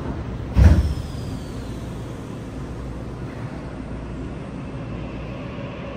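Interior of a stopped Yokohama Municipal Subway 3000R-series car with its doors just shut: one loud thud about half a second in, then the car's steady equipment hum while it stands waiting to pull away.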